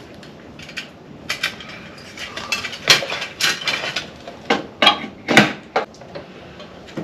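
Irregular metallic clinks and knocks of hand tools and sheet-metal parts being handled while a rocker panel is fitted and clamped, loudest in clusters about three seconds in and around five seconds in.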